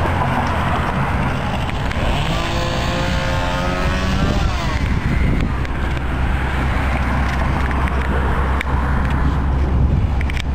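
Tasmanian Devil spinner firework going off: a sudden loud hiss as it ignites, a whistling whine that falls in pitch from about two to four and a half seconds in, then continued hissing with a few sharp crackles in the second half.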